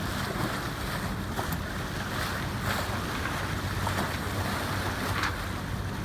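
Wind buffeting the microphone over the rush of sea water along a sailing yacht's hull, with a steady low drone underneath.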